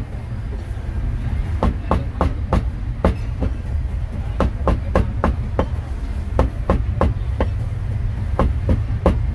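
Cleaver chopping roast meat on a chopping block: sharp, unevenly spaced chops about two to three a second, over a steady low rumble.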